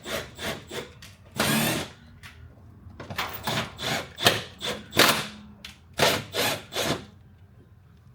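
Packaging being pulled open and handled: a quick run of short rustling, tearing and scraping noises from cardboard and bubble wrap, about a dozen in all, with a longer one about one and a half seconds in.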